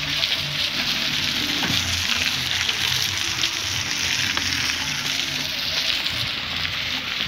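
Vehicle driving slowly along a wet, muddy track: a steady hiss of tyres and water on the soaked road, with a low engine hum underneath.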